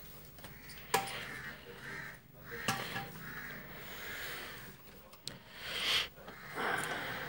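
A few sharp clicks and knocks of a circuit card being handled and fitted into a UPS cabinet, amid swells of breathing close to the microphone.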